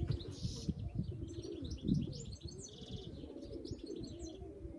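Domestic pigeons cooing continuously, with small birds chirping over them during the first few seconds.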